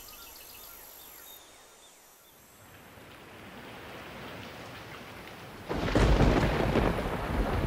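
Rain falling, swelling from faint to steady. After about six seconds a sudden loud thunderclap breaks in, followed by rumbling thunder and heavy rain.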